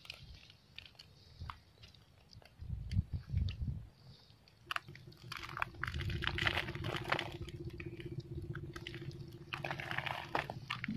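Footsteps crunching over dry coral rubble in irregular clusters, with wind rumbling on the microphone. A steady hum runs through the middle stretch.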